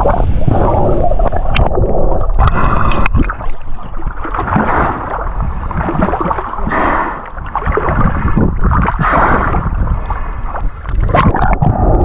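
Water splashing and gurgling around a swimmer at the surface, surging in waves about every two seconds with scattered sharp splashes.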